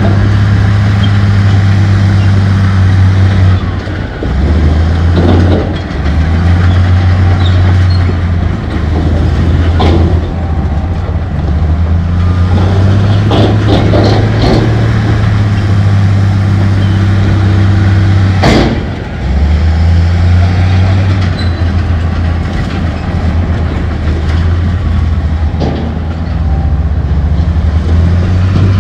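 Heavy diesel engine of earthmoving machinery working under load. The low drone drops and picks up again a few times, with scattered sharp clanks of rock and steel, the loudest about two thirds of the way through.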